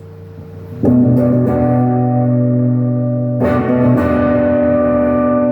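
Epiphone Les Paul Jr. electric guitar played overdriven through a Crate amp, with the volume full up and the tone knob all the way off. Two chords are strummed, about a second in and again about three and a half seconds in, each left to ring. The sound is dark and "gnarly and mean".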